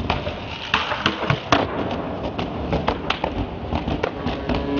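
Skateboard wheels rolling with a run of sharp, irregular clacks and knocks from the board.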